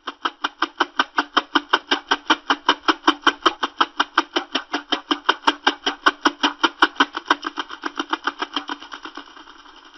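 Synthesized space-music sound: a rapid, even train of buzzy electronic pulses, about seven a second. The pulses blur into a smoother drone over the last two seconds.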